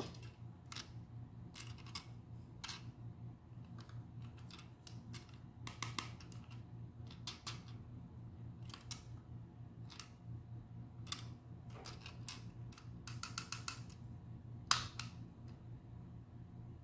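Small clicks and taps of a hard plastic Minions Happy Meal toy van being handled and its hinged side panel flipped open. Scattered single clicks, a quick run of about eight clicks a little past two-thirds through, then one sharper click.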